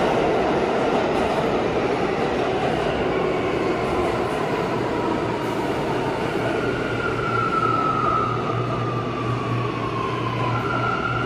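New York City subway train slowing, its running noise easing and its electric motor whine falling in pitch, then settling into a steady whine near the end.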